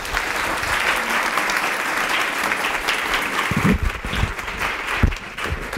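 Audience applauding in a room, many hands clapping together, thinning out toward the end. A few low thumps come through in the second half.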